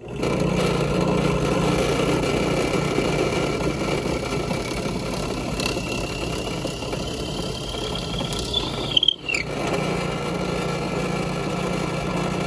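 Small benchtop drill press running steadily while its bit drills holes into a spruce block. A thin rising whine is heard from about six to nine seconds in, then a brief dip in the sound.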